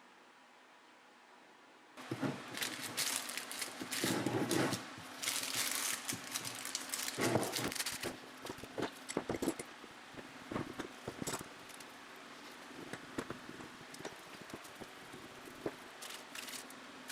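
Irregular crinkling, crackling and clicking of materials being handled at a workbench, starting about two seconds in after a faint steady hum, busiest in the first half and sparser toward the end.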